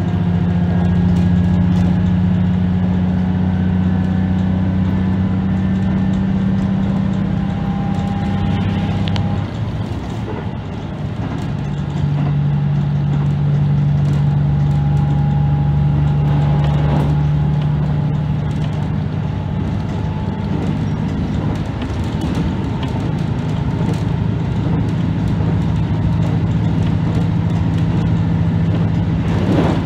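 KiHa 75 diesel railcar running along the line, heard from the driver's cab: the diesel engine drones at a steady pitch, drops away about a third of the way through, then pulls again at a lower note, with running noise from the wheels and track. A couple of short knocks from the rails come through.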